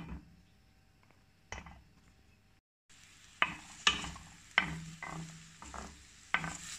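Diced red onion sizzling in hot oil in a stainless steel pan, stirred with a wooden spatula that knocks and scrapes against the pan several times. The sizzle starts about three seconds in, after a quiet stretch and a brief dropout.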